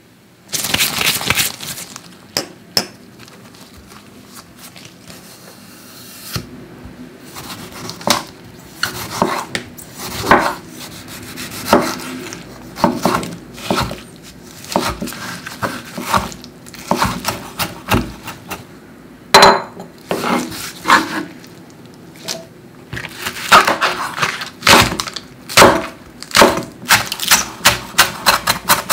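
A chef's knife cutting tomato and green onion on a wooden cutting board, each stroke ending in a knock of the blade on the wood. The strokes are spaced irregularly at first, with a quick run of chops near the end.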